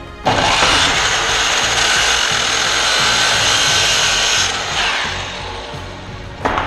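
Makita miter saw starting up and cutting through a wooden board, its motor whining under the blade noise. About four and a half seconds in it winds down, and a knock comes near the end.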